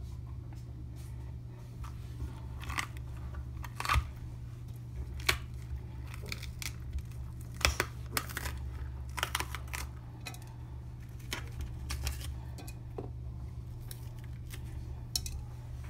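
Crisp snapping and tearing of a raw green bell pepper as hands pull out its core, ribs and seeds on a wooden cutting board, in irregular sharp clicks. A steady low hum runs underneath.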